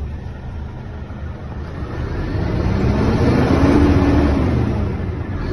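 Scania P230 truck's nine-litre five-cylinder diesel engine heard from inside the cab, running at idle and then revved once about two seconds in, its pitch rising and sinking back toward idle near the end.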